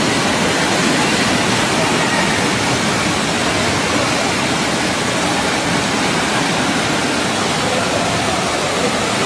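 Floodwater rushing down a street as a fast torrent, a loud, steady rush of water.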